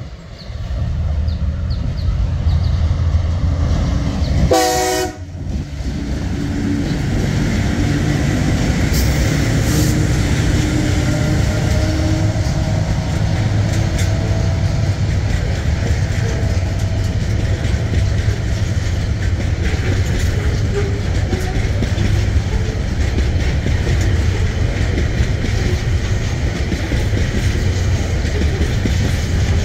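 Tasrail TR-class diesel locomotives hauling a container freight train past close by: a steady low engine rumble and wagons rolling along the track, with one short horn blast about five seconds in.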